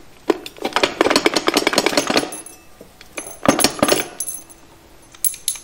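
Internal parts of a TH350 automatic transmission turned by hand inside the case, giving a rapid metallic clicking rattle in two spells, the second shorter. Whether it is supposed to sound like that is uncertain.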